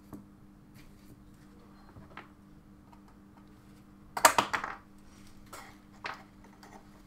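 Tool handling at a soldering bench: light clicks and taps, a louder burst of clattering about four seconds in and another click near six seconds, over a faint steady hum.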